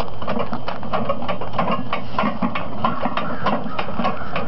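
Weight plates on a loaded strongman yoke rattling and clanking against their posts as the 800-pound yoke is carried, a quick irregular run of metal knocks.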